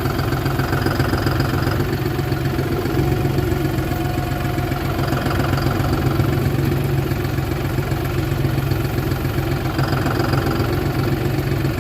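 Farm tractor engine running steadily while it slowly lowers a hay bale.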